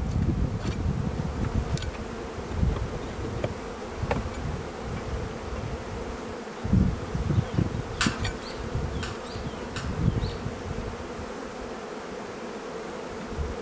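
Honeybees buzzing around an opened hive: a steady, even hum of many wings. Now and then there are low thumps, and a few light clicks come about eight seconds in.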